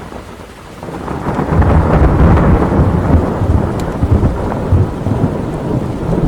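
Thunderstorm ambience: steady rain with a deep thunder rumble that swells about a second in, is loudest for a couple of seconds, then slowly fades. The recording cuts off abruptly at the end.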